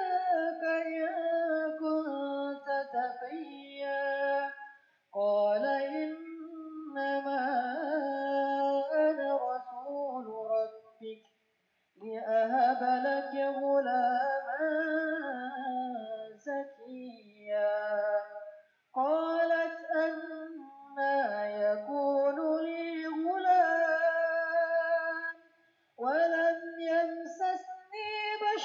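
Background music: a song with a singing voice, in phrases of a few seconds broken by short pauses.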